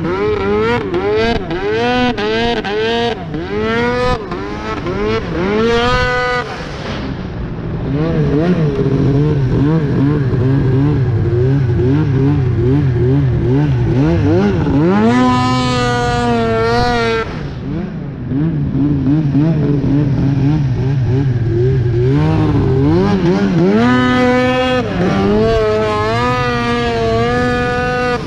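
Arctic Cat CFR 1000R snowmobile's two-stroke twin running through a loud aftermarket GGB exhaust can, revving up and down as the throttle is worked. It gives quick repeated blips for the first six seconds, a hard rising rev about fifteen seconds in, and more rapid rises and falls near the end.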